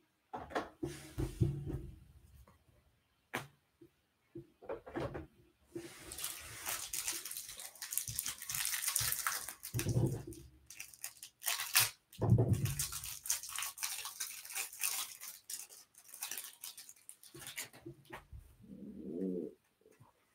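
Paper trading cards and their packaging handled by hand: long stretches of rustling and crinkling as a new stack is opened and cards slide against each other. There are sharp clicks and a few low thumps of the cards and hands against the table.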